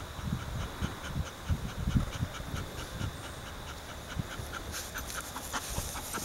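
Chocolate Labrador Retriever panting quickly and evenly, about four breaths a second, with a few low thumps in the first couple of seconds.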